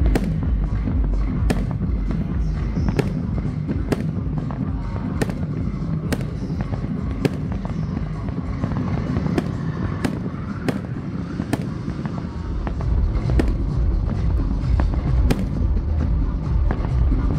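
Aerial fireworks bursting in a run of sharp bangs, roughly one a second, over a steady low rumble, with music playing underneath.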